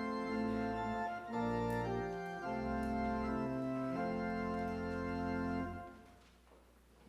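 Organ playing slow, sustained chords that change about once a second, with the final chord released about six seconds in, leaving quiet room tone.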